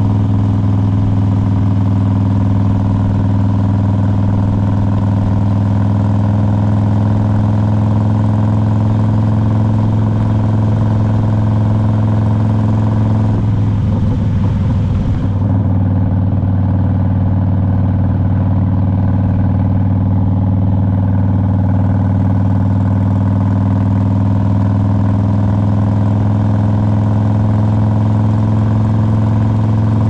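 2001 Harley-Davidson Road King's Twin Cam 88 V-twin running steadily under way, with a brief break in the steady note about halfway through.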